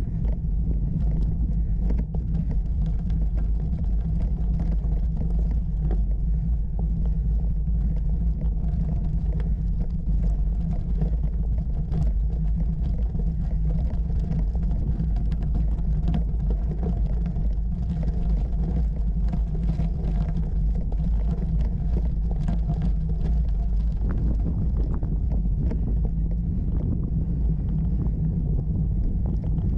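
A bicycle riding over a rough gravel track, heard from a camera on the bike: a steady low rumble of tyres and frame vibration, with many small crackles and ticks of stones under the tyres.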